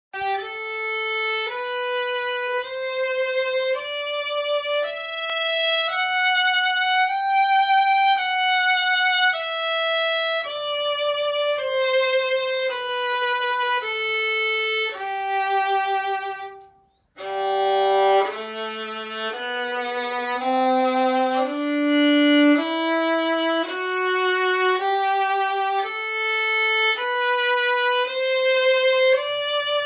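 Solo violin playing a G major scale in separately bowed notes, about one and a half a second: up one octave from the G above middle C and back down. After a short pause near the middle it starts again from the low open G string and climbs.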